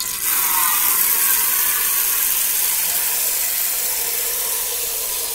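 Tap water running into an aluminium pot and splashing as the pot fills, starting suddenly as the flow begins.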